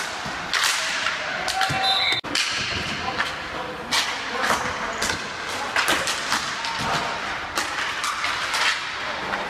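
Ball hockey play: sticks clacking together and slapping the ball and the floor in quick, irregular cracks and thuds.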